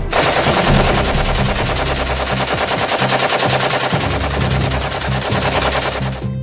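Machine-gun fire sound effect: rapid automatic gunfire without pause for about six seconds, cutting off abruptly just before the end.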